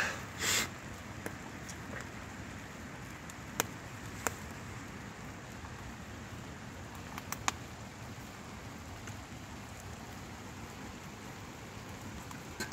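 Steady heavy rain falling, an even hiss, with a few sharp clicks about three and a half, four and seven seconds in.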